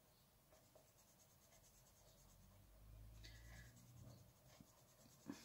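Faint scratching of a Derwent Inktense watercolour pencil shading on paper, with a faint low rumble about halfway through and a light tick near the end.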